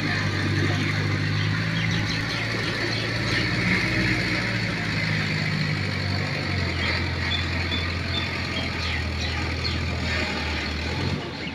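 Diesel engine of a wheeled crane-loader machine running steadily as it drives across the lot, dropping away shortly before the end as it moves off.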